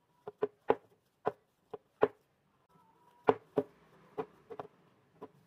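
A hand kneading a dough of mashed boiled potato and flour in a glass bowl: about a dozen irregular sharp knocks as the fingers and the dough strike the bowl, with soft squelching of the dough between them.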